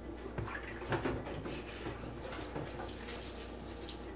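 Kitchen faucet running into a stainless steel sink while hands are rinsed under the stream, with a few faint knocks.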